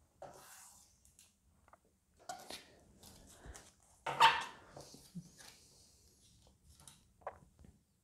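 Hands handling a tarot card deck on a wooden tabletop: cards shifting and being squared and set down, in scattered soft sounds with one louder sharp sound about four seconds in.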